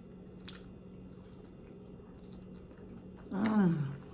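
Close-miked chewing of a buffalo chicken wing, with soft scattered mouth clicks. About three seconds in, a short closed-mouth hum of enjoyment falls in pitch.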